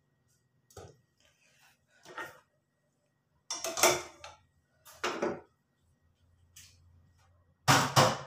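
Stainless steel bowls and a pot being handled and set down on the counter and the gas stove grate: a series of about five metal clanks and knocks, loudest around the middle and near the end.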